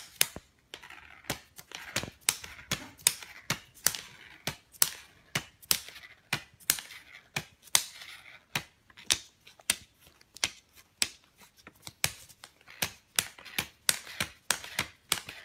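Polymer banknotes crinkling and crackling as a cat noses and mouths through a pile of them: a long run of sharp, irregular crackles, two or three a second.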